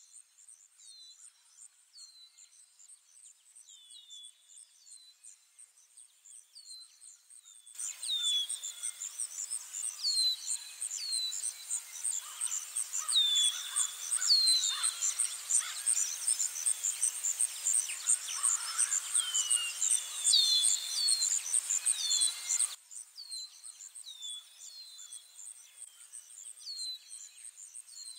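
Outdoor nature ambience: insects keep up a steady, rapidly pulsing high trill while a bird repeats short falling chirps about once a second. About eight seconds in, a louder layer of busier birdsong over a hiss cuts in, and it cuts off suddenly some fifteen seconds later.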